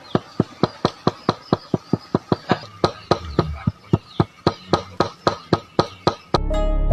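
Rapid, evenly spaced sharp strikes of a hand tool, about four a second. Music with strings comes in near the end.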